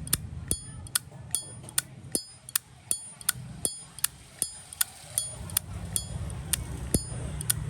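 Zippo lighter's hinged lid flicked open and snapped shut over and over, about two to three sharp metallic clicks a second, many of them ringing high.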